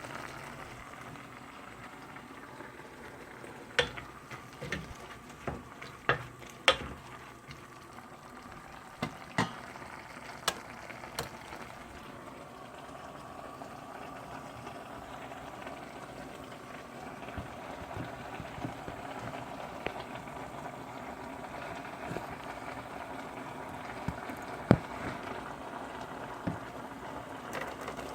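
Food boiling in a pot on a gas stove, a steady bubbling. Several sharp clicks and knocks come between about 4 and 11 seconds in, and one more near the end.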